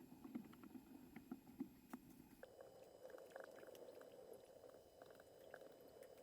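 Near silence: a faint steady hum with scattered small ticks, the hum shifting higher in pitch about two and a half seconds in.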